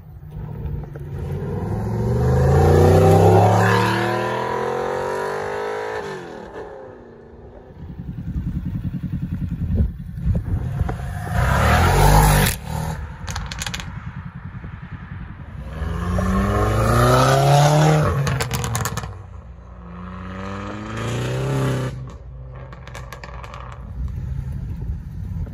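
Several cars pulling away hard one after another, each engine revving up with its pitch climbing through the gears, loudest about three seconds in and again past the middle. Sharp cracks are heard about halfway through.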